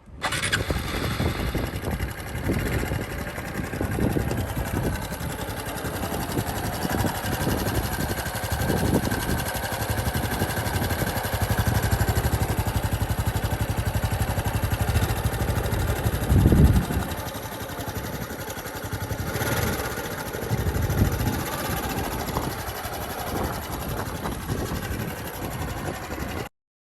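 Honda Super Cub 110 (JA44) single-cylinder engine running steadily, with one loud low thump about two-thirds of the way through. The sound cuts off abruptly near the end.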